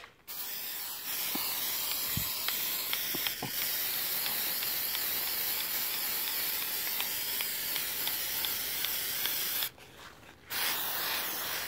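Aerosol can of truck bed coating spraying a steady hiss, held in one long pass that stops briefly near the end and then starts again.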